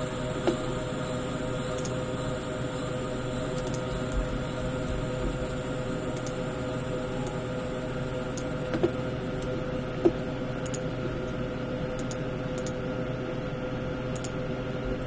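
A handful of isolated sharp clicks from computer input, about four in all with the loudest about ten seconds in, over a steady hum of held tones.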